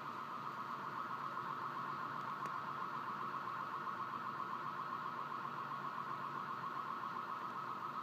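Car alarm sounding in the street below, a steady high tone with a fast warble that keeps going without a break.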